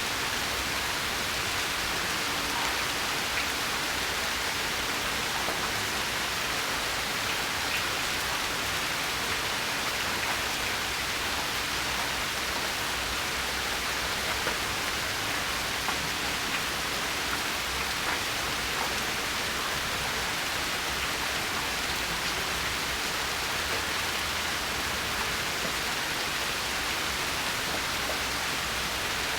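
Steady rain falling: an even hiss, with a few faint single drop ticks now and then.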